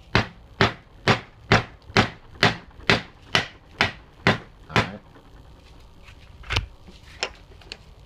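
Hammer blows on a wooden board, driving stacked hard drive magnet assemblies together in a bench vise: about eleven sharp knocks, a little over two a second, that stop about five seconds in, followed by two lighter knocks.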